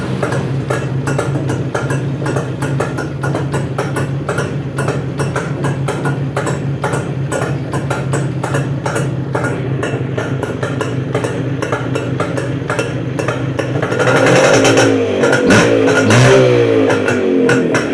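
Old motorcycle engine idling with an even, steady beat, then revved up and down a few times near the end.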